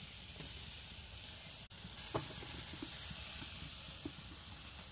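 Chicken thighs sizzling on the hot grate of an Akorn kamado charcoal grill: a steady hiss with a few small pops of fat.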